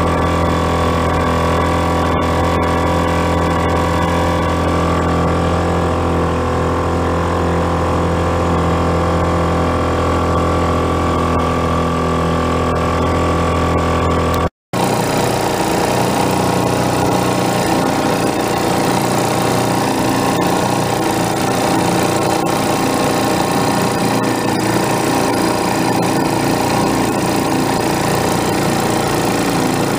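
Small vintage outboard motor running steadily, pushing a small boat along. A brief cut about halfway through, after which the motor sounds rougher and noisier.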